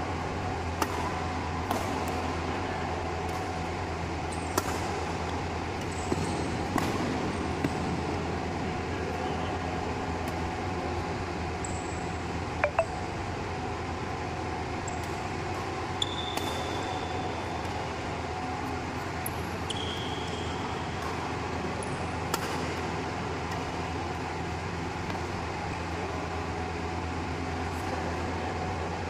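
Badminton rackets striking a shuttlecock during a doubles rally: about nine sharp, short hits, most of them over the first eight seconds and a few later, spaced a second to several seconds apart. Two short high shoe squeaks on the court floor come in the second half, over a steady low hum.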